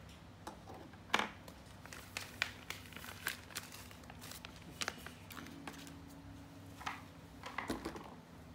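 Thermal paste packaging being opened by hand: plastic crinkling with scattered small clicks and taps.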